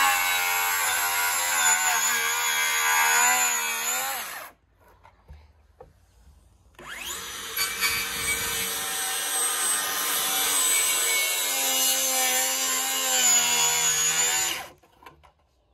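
DeWalt 60V FlexVolt cordless circular saw cutting through a wooden slab, its motor whine dipping in pitch under load and recovering. It runs in two stretches with a pause of about two seconds between them, and stops shortly before the end.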